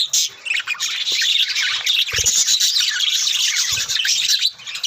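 A flock of cage birds chirping and squawking all at once in a constant chatter of short, high calls.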